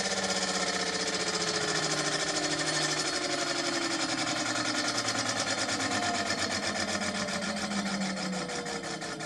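An e-scooter's hub-motor wheel spinning freely off the ground and slowly running down, with a rapid, even rubbing pulse on every turn and a faint falling whine. The brake disc is still catching a little as it turns.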